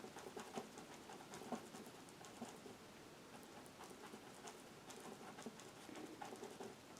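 Faint, irregular tapping and brushing of a bristle brush dabbing acrylic paint onto canvas.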